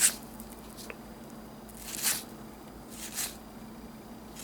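Trading cards being handled and slid one over another by hand: three short, soft swishes.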